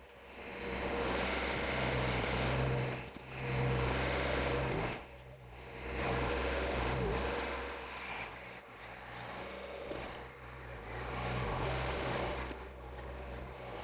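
Compact track loader's diesel engine working as it pushes snow, its note rising and falling with the load.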